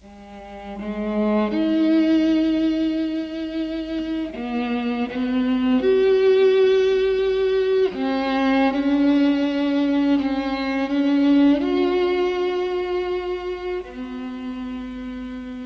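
Slow jazz instrumental intro: held chords from several instruments that fade in over the first two seconds and change every few seconds.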